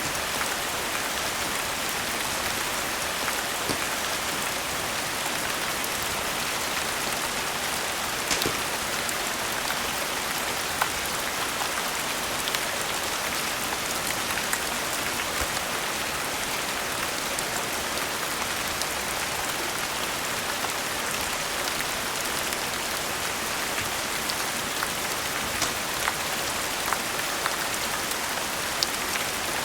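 Steady rain falling, an even hiss, with scattered sharp pops and clicks from a crackling wood fire.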